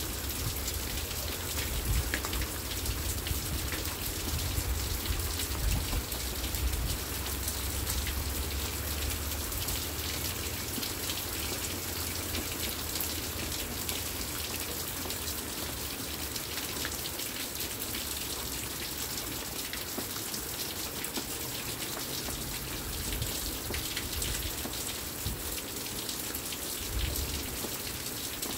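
Steady rain falling on a wet wooden deck and patio, a continuous hiss dotted with the ticks of individual drops. A low rumble comes and goes in the first several seconds and again near the end.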